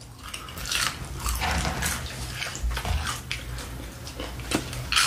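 Close-miked chewing and biting of food, with short crunchy bites at irregular intervals.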